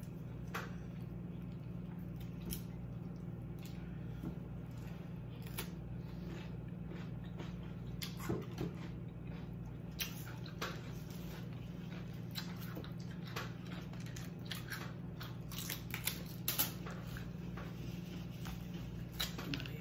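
Close-miked mukbang eating sounds: chewing and small wet clicks and crackles of seafood being handled, more frequent near the end as a snow crab leg is cracked and pulled apart by hand. A steady low hum runs underneath.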